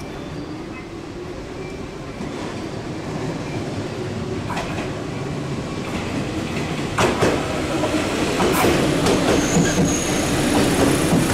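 JR West 221 series electric train pulling into the platform, growing steadily louder as it nears and passes, its wheels clicking and clattering over the rail joints. A brief high squeal comes about nine and a half seconds in as it slows.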